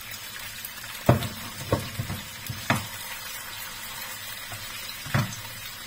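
Salmon pieces sizzling in oil in a non-stick frying pan, with a spatula knocking and scraping against the pan several times, the loudest knock about a second in.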